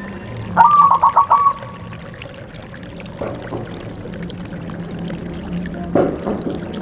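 Zebra dove (perkutut) cooing: a quick run of about four clear, rapid notes about half a second in, then a fainter call and a lower coo near the end, over a steady low hum.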